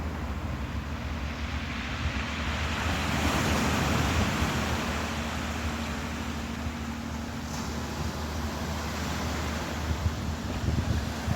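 Ocean waves rushing, with one surge swelling about three seconds in and easing off, over a steady low hum.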